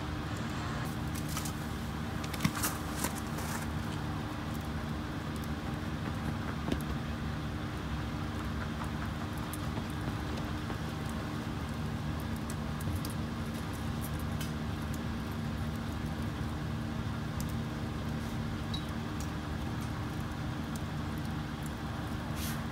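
A steady low motor hum, with a few faint light clicks about two to three seconds in.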